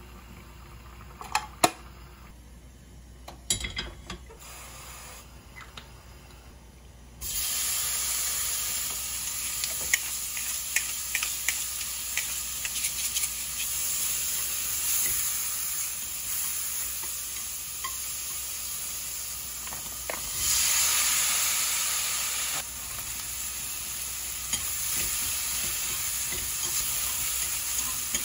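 Shrimp stir-frying in a frying pan, sizzling steadily while wooden chopsticks stir and click against the pan as they brown. The sizzle starts suddenly about seven seconds in, after a quieter stretch with a few light clicks, and grows louder for a couple of seconds around twenty seconds in.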